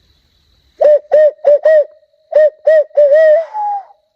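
Hand-blown barred-owl locator call hooting the "who cooks for you, who cooks for you all" sequence, used to make turkeys gobble. It gives four short hoots, a short pause, then a quicker run that ends in a drawn-out, wavering hoot sliding up to a higher, falling final note.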